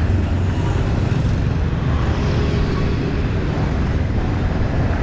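Steady street noise of motor traffic running past, a low rumble with no single event standing out.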